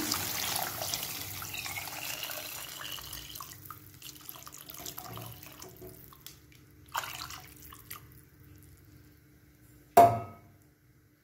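Water being poured into a clay pot of hot sautéed vegetables, splashing and fading away over the first few seconds. About ten seconds in comes a single sharp knock, the loudest sound.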